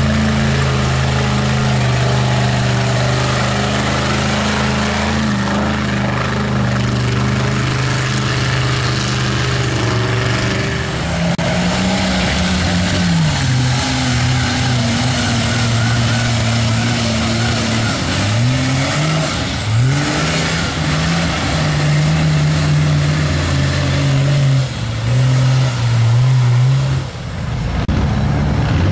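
Engines of lifted pickup mud trucks held at high revs while plowing through a mud bog, with mud and water thrown up by the tyres. The engine pitch drops and climbs again several times as the throttle is eased and reapplied.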